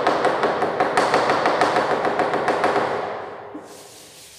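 Chalkboard duster scrubbed quickly back and forth across the board, a rapid run of scraping knocks about six a second that fades out after about three seconds.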